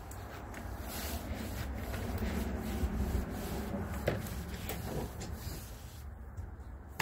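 Paint roller on an extension pole rolling wet stain across wooden deck boards: a rough rubbing swish, with a couple of light knocks about four seconds in.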